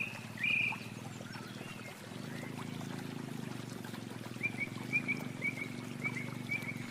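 Short, high animal chirps: a few in the first second, then a quicker string of them in the second half, over a steady low pulsing hum.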